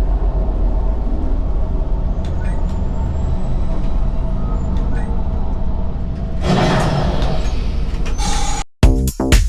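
Steady low rumble and hum of the Millennium Falcon: Smugglers Run ride cockpit as the mission ends. About two-thirds of the way in comes a hiss of about two seconds. Near the end the sound cuts off suddenly and upbeat music with a strong beat takes over.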